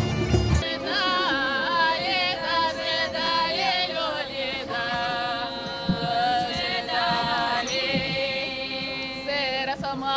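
Bagpipe playing cuts off about half a second in, and women's voices take up a Russian Maslenitsa folk song, the sung lines bending and sliding in pitch over a steady held note.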